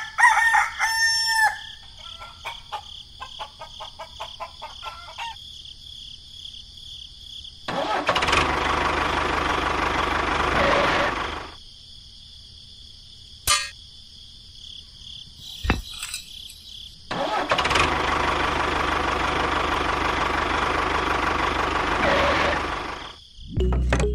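A rooster crows at the start, then a small engine runs in two loud stretches of about four and six seconds, over a steady high tone.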